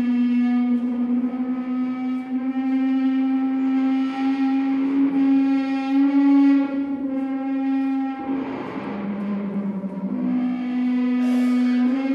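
Drum played with extended technique, giving a loud, sustained droning tone rich in overtones, picked up by a contact microphone and amplified. The pitch drops lower for about two seconds past the middle, then returns to the first note.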